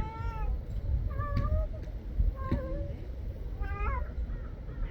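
Mother cat meowing in about four separate short calls, calling for her kitten.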